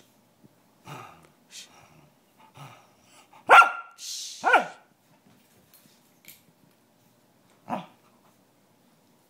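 Australian cattle dog barking: two loud, sharp barks about a second apart near the middle, each falling in pitch, and a shorter bark near the end, with a few soft short sounds before them.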